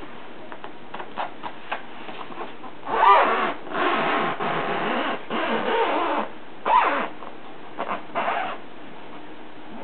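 Scratchy rubbing and squeaking noises made on a box. A few light taps come first, then a long run of scraping strokes about three seconds in with squeaky tones in it, and shorter squeaks and scrapes near the end.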